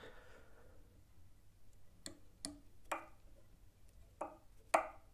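Faint, irregular small clicks and ticks, about five in the second half, as copper wire is wound around a fly hook's shank in a tying vise.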